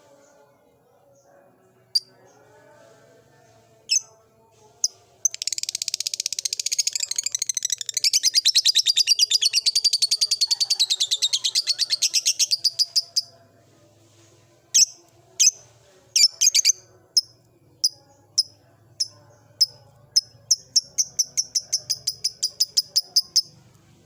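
Lovebird singing: sharp single chirps, then a long, fast, continuous chattering run of about eight seconds, the 'ngekek' song. More separate chirps follow, and a second, shorter rapid run comes near the end.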